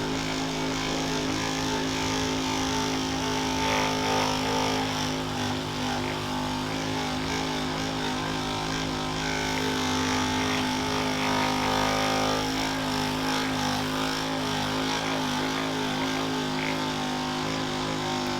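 A small electric motor runs with a steady hum, then winds down in pitch as it is switched off at the very end.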